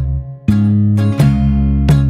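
Instrumental music with strummed guitar chords in a steady rhythm, with a brief drop-out just after the first chord.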